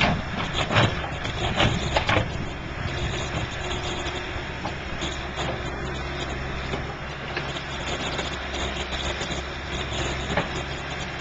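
John Deere backhoe loader's diesel engine running steadily while the backhoe digs, with a few sharp knocks of the bucket against rock and soil in the first two seconds.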